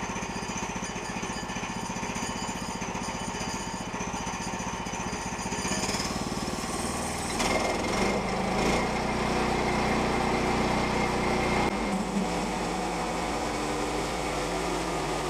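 Small petrol engine of a Woodland Mills portable bandsaw mill running steadily, with a rattling vibration from the shaking mill head. Its tone changes about six seconds in and it gets a little louder from about seven and a half seconds. The owner suspects a loose drive belt is behind the shaking.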